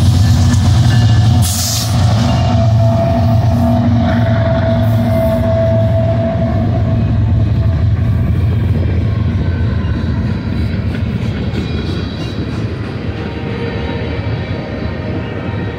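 GE ES44 diesel locomotives passing, their engines giving a steady low drone that slowly fades, followed by freight cars rolling by on the rails. A brief hiss comes about a second and a half in.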